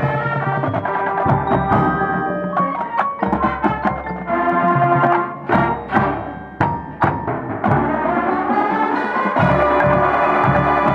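A high school marching band playing its field show: held brass and wind chords over percussion, with sharp drum and mallet strikes throughout and a chord that swells upward in pitch in the second half.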